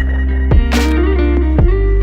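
Background music with a steady electronic beat: deep bass, punchy kick drum, a snare-like hit and sustained melodic notes.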